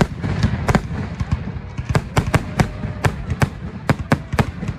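Fireworks display: a rapid, irregular run of sharp bangs and cracks, a dozen or more in a few seconds, over a steady low rumble.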